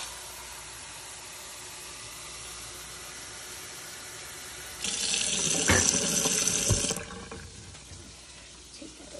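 Kitchen sink tap running water into a measuring cup as it is filled. The flow runs steadily, turns into a much louder rush about five seconds in, and stops about two seconds later.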